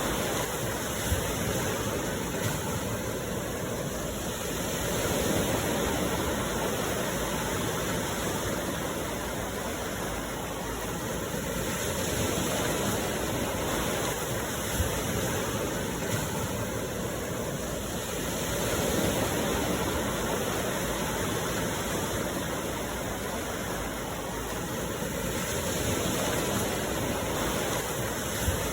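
Sea waves washing ashore: a steady rush of surf that swells and eases about every six or seven seconds.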